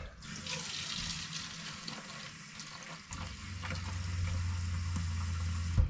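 Kitchen faucet running water into a plastic spray bottle, filling it. A low steady hum joins about three seconds in, and a knock sounds near the end.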